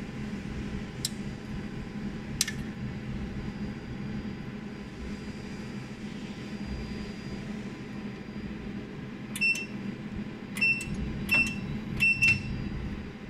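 A jewelry laser welding machine hums steadily while it runs. There are two sharp clicks in the first few seconds, then a string of short, high-pitched beeping clicks, several in quick pairs, in the last few seconds.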